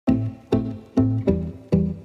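Background music of plucked low string notes, five in quick succession, each struck sharply and fading away.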